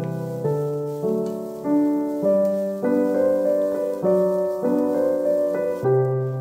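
Background piano music: calm, even notes and chords, a new one struck about every half second.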